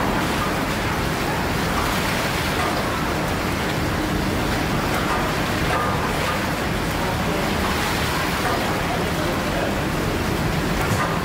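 Steady hiss and rumble of the 1858 Hawthorn steam beam engine running, an even noise that holds level throughout.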